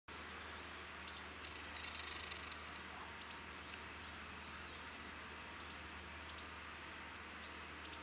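Great tit singing: a short high note dropping to a lower one, repeated about every two and a half seconds, over a faint steady hiss.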